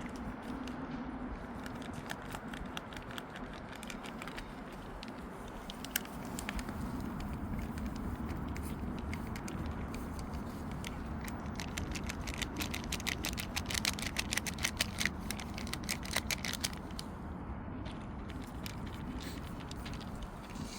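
Cats crunching dry food, a run of irregular crisp clicks and crackles that grows busier past the middle.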